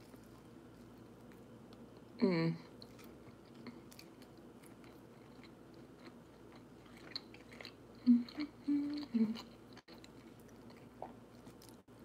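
Close-up chewing of a mouthful of avocado cheeseburger on toast, with soft wet mouth clicks. A short vocal sound comes about two seconds in, and a few more follow around eight to nine seconds in.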